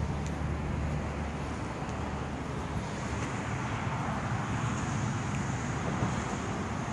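Wind blowing across the microphone outdoors: a steady rushing noise with a low rumble.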